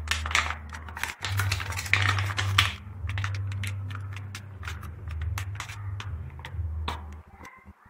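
A spoon clicking and scraping against a baking dish while tomato sauce is spread over a lasagna layer: quick irregular clicks, densest in the first three seconds, over a steady low hum that stops near the end.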